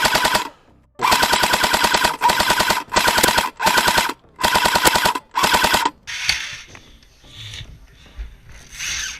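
Airsoft electric LMG firing full-auto, about seven short bursts of rapid, even shots over a motor whine, one after another, then quieter scattered clatter for the last few seconds.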